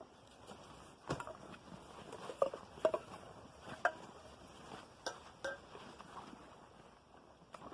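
Irregular light knocks and clicks, about seven scattered through the span, like objects being handled and set down.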